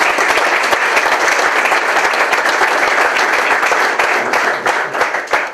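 Audience applauding: many people clapping at once, dying down near the end.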